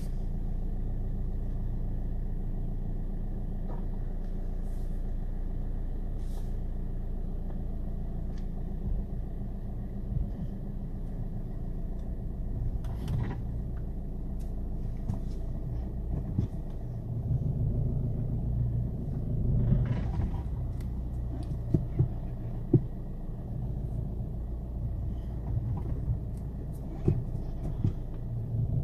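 A 2008 Volkswagen Golf V, its 2.0 TDI diesel engine running with a steady low hum, lets out a handful of sharp clunks and knocks as it rolls slowly over a bump, most of them in the second half. The owner has no idea what causes the knocking. It happens over bumps at low speed even with the engine off.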